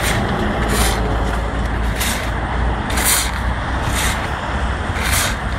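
A truck engine runs steadily with a low rumble, while shovels and a lute scrape hot asphalt mix about once a second.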